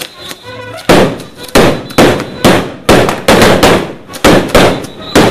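Fireworks going off in a rapid string of loud, sharp bangs, about two a second, starting about a second in.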